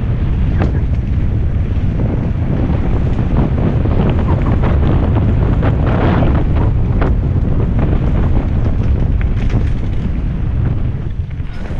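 Wind buffeting the microphone of a helmet camera on a fast mountain-bike descent, over a steady rumble of tyres on a dirt trail, with scattered knocks and rattles from the bike.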